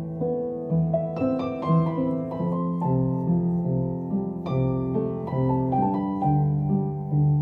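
Background piano music: slow, sustained notes with a short run of higher notes about a second in.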